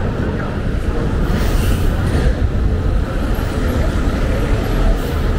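Midtown street traffic: a steady low rumble of passing vehicles, with brief hisses about a second and a half in and again near the end.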